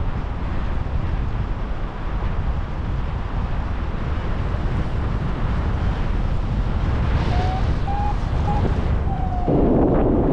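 Airflow buffeting the microphone in flight under a paraglider, a steady rush heaviest in the low end that grows louder near the end. A few short, faint beeps come through it about two-thirds of the way in.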